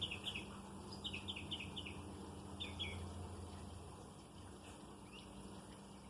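A small bird chirping in short runs of quick downward-sliding notes, three or four runs and then a single faint note near the end, over a low steady hum that fades out about two-thirds of the way through.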